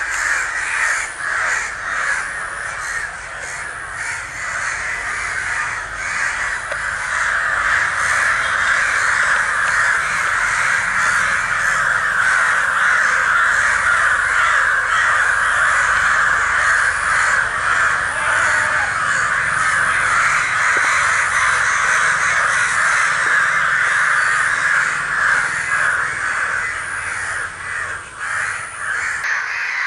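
A large flock of crows cawing continuously, many harsh calls overlapping into a dense din. This is the alarm calling of crows gathered over a fallen, injured crow.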